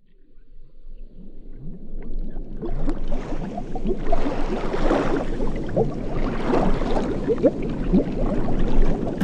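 A gurgling, bubbling sound made of many short rising and falling pitch glides. It fades in from silence over the first three seconds or so and then holds steady, opening a music track.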